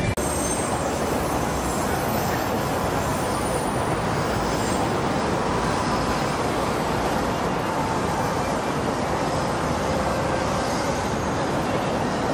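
Steady background noise of city traffic and trains.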